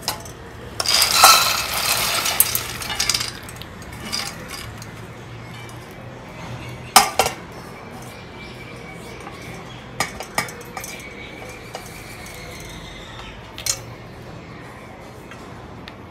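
Kitchen clatter of dishes and metal utensils: a busy run of clinks and knocks about a second in, then a few single sharp clinks spaced several seconds apart.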